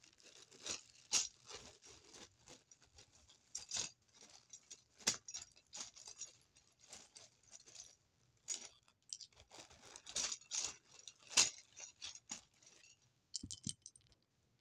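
Small plastic Lego pieces being handled: irregular sharp clicks, rattles and crackly rustling, with a few louder clicks scattered through and a quick run of clicks near the end.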